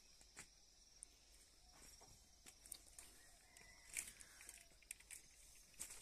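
Near silence: faint outdoor ambience with a few soft ticks and footsteps.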